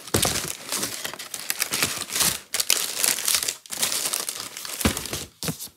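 Plastic bag rustling and crinkling as it is handled, in irregular crackling bursts with a few short pauses.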